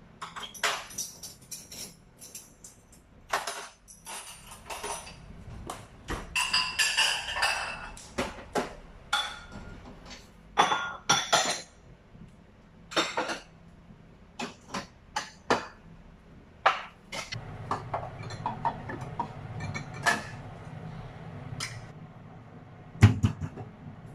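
Kitchen handling: dishes, a pot and utensils clinking and knocking against each other in a quick irregular series of sharp taps, some with a short ring. About two-thirds of the way through, a low steady hum starts under the taps.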